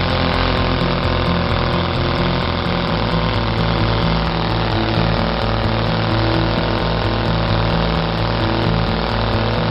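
A 13cc three-cylinder four-stroke glow-plug model radial engine running steadily with a propeller, its note changing slightly about three seconds in.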